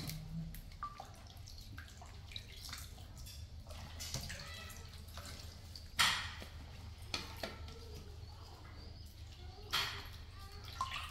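Water splashing and dripping in a plastic basin as vegetables are washed by hand, in small scattered splashes with a louder one about six seconds in and another near the end.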